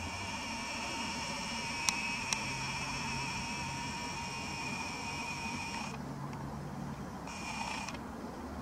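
Nikon Coolpix P900's lens zoom motor whining steadily as the lens zooms in, stopping abruptly about six seconds in, then a short second whine near the end. Two small clicks about two seconds in.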